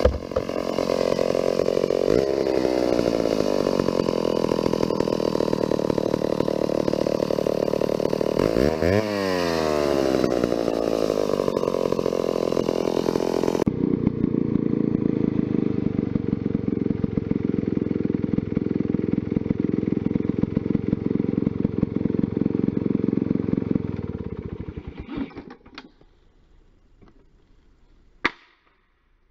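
Vintage McCulloch chainsaw engine running steadily, its revs dipping and climbing back about nine seconds in. It sounds duller after an abrupt change about halfway through. It then runs down and stops near the end, followed by near silence and one sharp click.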